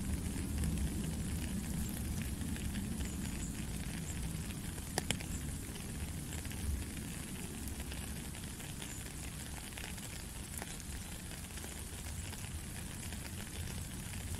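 Steady light rain: an even soft hiss, with a few single drops standing out, the clearest about five seconds in.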